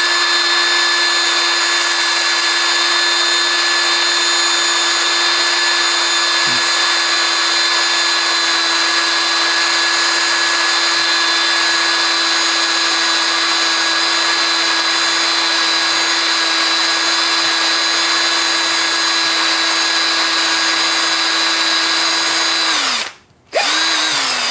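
Electric drill spinning a spring-loaded cylinder hone in the oiled bore of a Briggs & Stratton single cylinder, knocking the glaze off a rough cylinder wall. It runs at one steady speed for most of the time, winds down and stops about two seconds before the end, then gives one short burst that also winds down.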